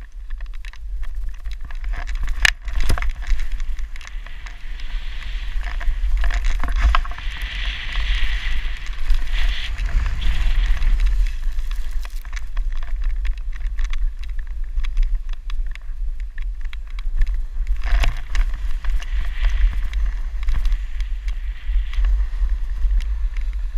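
Wind rumbling on a helmet-mounted camera's microphone while a snowboard slides and scrapes over snow, the hiss of the board swelling for several seconds about a quarter of the way in and again near the end. A couple of sharp knocks, one early and one about three quarters of the way through.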